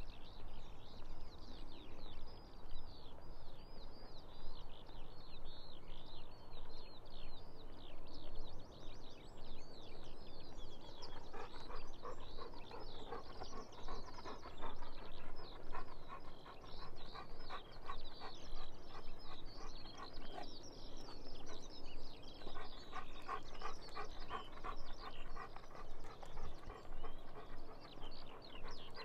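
Golden retriever panting in a quick, even rhythm, in two spells with a short break between them, over steady songbird song.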